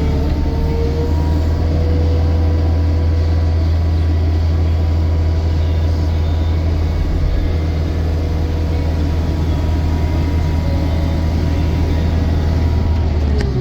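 Takeuchi TL12 tracked skid steer's diesel engine running at a steady speed, with a steady faint whine on top.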